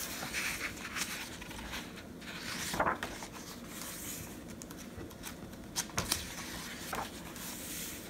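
Pages of a paperback picture book turned by hand: paper swishing and rustling, the loudest swish about three seconds in, with a few light clicks and taps as the pages are smoothed flat around six seconds.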